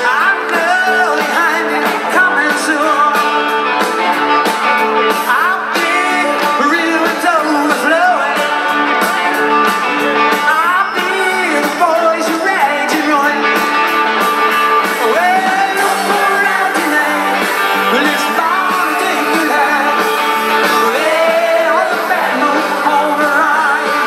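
Live rock band playing on an outdoor stage, a lead voice singing over electric and acoustic guitars, organ and drums, heard through the PA from within the audience, thin in the bass.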